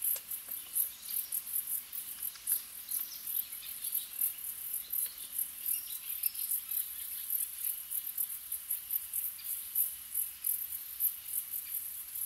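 Crickets chirping in a fast, even pulse, several chirps a second, with a few faint bird chirps here and there.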